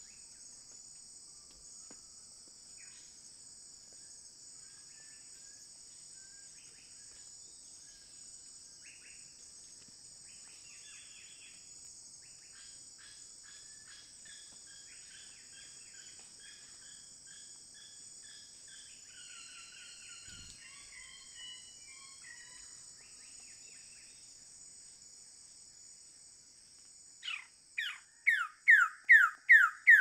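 Steady high insect chorus with faint calls of other forest birds. About three seconds before the end, a male Wilson's bird-of-paradise starts a loud, rapid series of short falling notes, about three a second.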